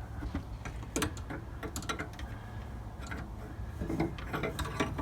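Scattered light clicks and taps of a 25 mm wrench against metal as it is worked onto the brake light switches, over a steady background hum.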